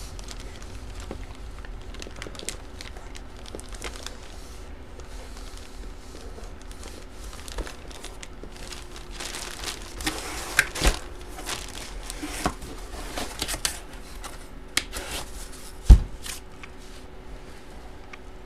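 Clear plastic packaging crinkling and rustling as a sleeved sports jersey and its cardboard box are handled, with scattered light taps. A single sharp thump about sixteen seconds in is the loudest sound.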